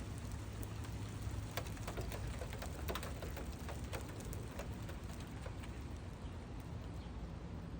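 Scattered raindrops ticking and tapping close to the microphone, thickest in the first half, over a steady low rumble.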